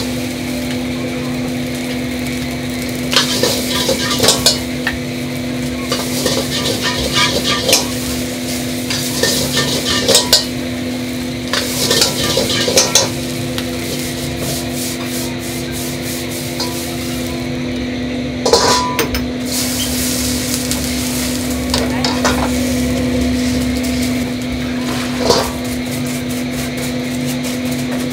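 Metal ladle scraping and knocking against a wok while stir-frying fried rice over a gas flame, with sizzling. The clatter comes in spells, busiest in the first half, over a steady hum.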